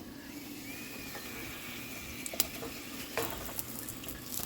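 Mini soft tortilla shells frying in a cast iron skillet, a steady sizzle, with two sharp clicks a little past halfway.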